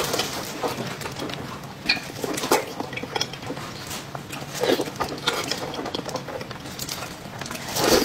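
Close-up chewing and wet lip-smacking of soft, fatty braised pork belly, heard as irregular clicks and squelches.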